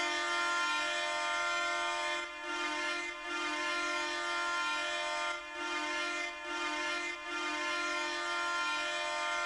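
The Ottawa Senators' NHL arena goal horn sounding: a loud, steady air-horn blast, rich in overtones. It is blasted over and over, with brief breaks between long blasts.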